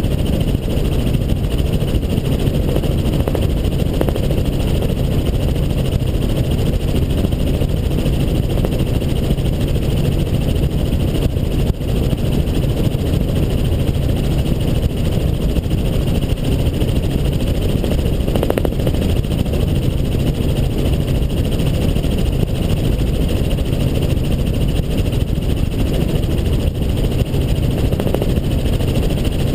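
Helicopter in flight: steady, loud rotor and engine noise.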